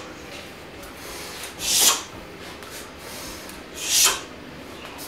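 Karate gi swishing with each low block: two rising swishes about two seconds apart, each cut off sharply as the block ends.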